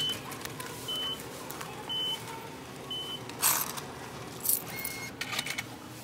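Semi-self checkout cash machine beeping: four short high beeps about a second apart, its reminder to take the change still in the coin tray. In the second half, a few brief rustles and knocks of handling.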